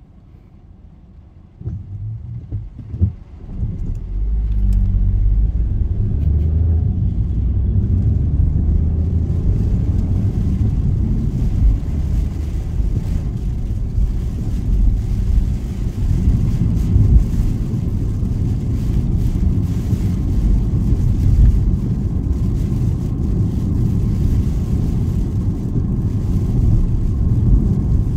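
Car pulling away from a standstill about two seconds in, then driving at steady speed: a continuous low rumble of engine and road noise heard from inside the cabin, with a hiss that builds from about ten seconds in.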